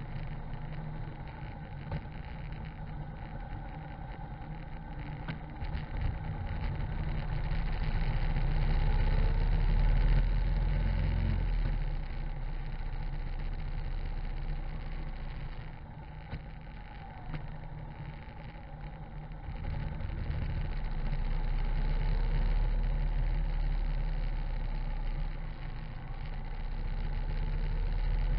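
Harley-Davidson V-twin motorcycle riding on wet asphalt: engine running under a rush of wind and road noise on the low-mounted microphone, growing louder twice and easing off in between.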